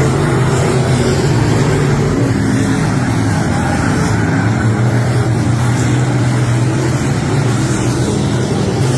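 Race car engine running hard on track, a steady loud engine note that eases down a little a few seconds in and climbs back.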